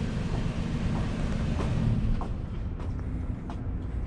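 A vehicle engine idling: a steady low rumble with a constant hum, with a few faint ticks over it.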